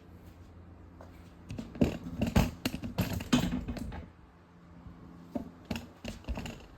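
A quick flurry of small clicks and taps, like hands handling a small object, about a second and a half in, lasting a couple of seconds, then a few separate clicks near the end.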